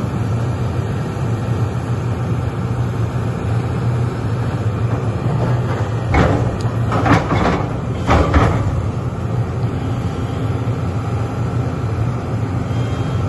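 Sany SY330H hydraulic excavator's diesel engine running steadily under load, with a few short, louder noises about halfway through as the machine works its bucket.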